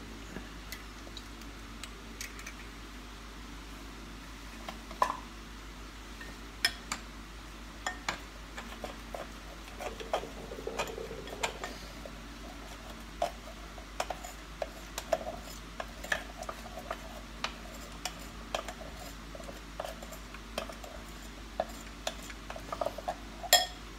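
A metal utensil tapping and scraping against a glass mixing bowl in short, irregular clinks as an egg is beaten into a flour-and-milk batter; one sharper clink near the end.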